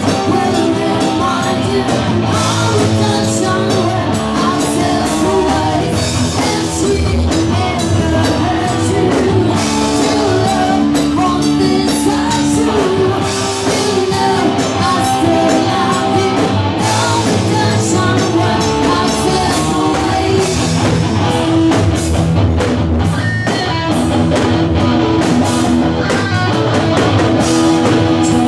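Live rock band playing: a woman sings into a microphone over amplified electric guitar and drums.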